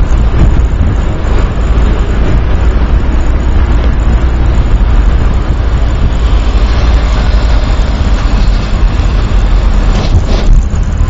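Car's engine and road noise heard from inside the cabin while driving through city traffic, a steady low rumble; a brief louder rush near the end.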